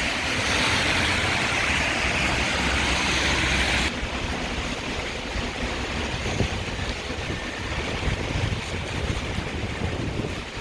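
Heavy rain falling, a steady hiss, which drops away suddenly about four seconds in. It leaves a quieter street background with a low rumble of traffic.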